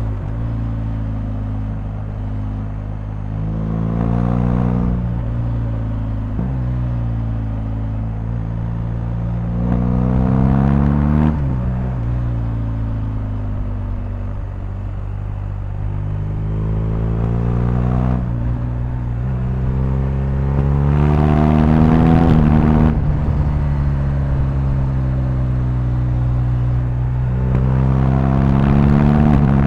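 BMW R1250GS boxer-twin engine under way. It pulls up through the revs and drops in pitch at each gear change, about five times, with steadier running between.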